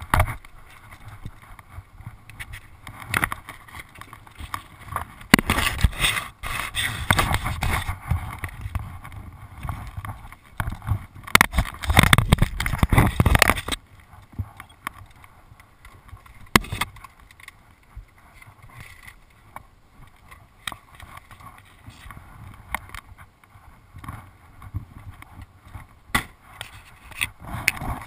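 Irregular knocks, scrapes and rattles of a small pit bike being handled and manoeuvred with its engine off, loudest and busiest from about five seconds in to about fourteen seconds in, with scattered single knocks after.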